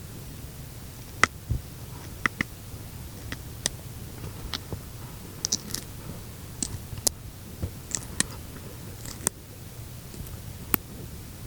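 Snails feeding on food, heard close up as scattered, irregular tiny crackling clicks from their rasping mouthparts, over a low steady hum.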